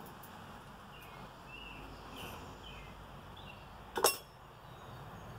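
One sharp hammer blow on red-hot steel at the anvil, about four seconds in, cutting a slit with a hot cut. Short bird chirps sound faintly in the background.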